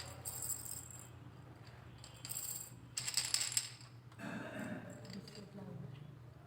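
Montessori sound-box cylinders being shaken in turn, each giving a short, hissy rattle from the grains inside: three bursts, in the first second, at about two and a half seconds, and at about three seconds. The cylinders are being compared by ear to pick out the softest.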